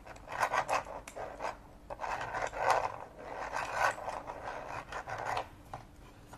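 Plastic gears and valve train of a 3D-printed V-twin model engine rasping and clicking as the engine is turned over by its hand crank, the sound swelling and fading roughly once a second.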